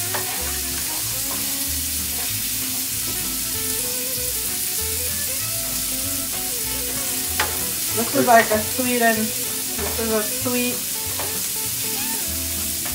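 Pork chops sizzling in a pan with a steady frying hiss. A faint voice rises over it for a few seconds past the middle.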